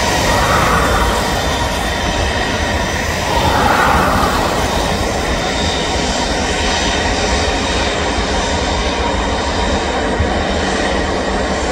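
Airliner engines running: a steady, loud rumble with thin constant whining tones over it.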